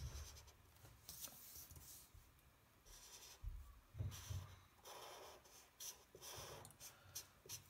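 Faint strokes of a gray felt-tip marker rubbing across paper in a series of short passes, laying down shading.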